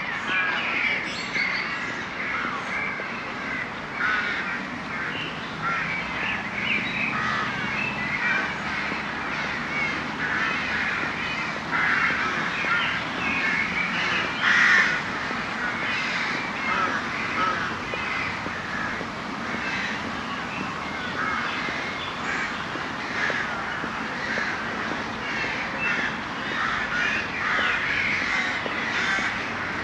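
A large flock of crows cawing, many birds at once in a dense, continuous chorus of overlapping calls.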